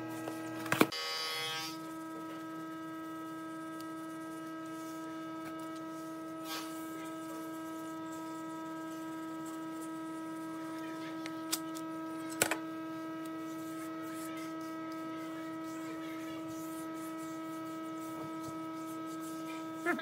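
A steady hum on one pitch with overtones, unchanging throughout, with a few short faint clicks about a second in and twice around the middle.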